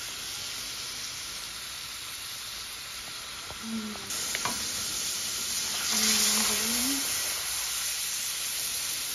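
Crabs, mussels, shrimp and corn sizzling in a wide pan of sauce. The hiss is steady, grows louder about four seconds in, and has a few light clicks.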